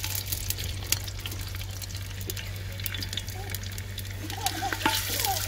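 Sliced onions sizzling and crackling in hot oil in a clay handi, stirred with a wooden spatula.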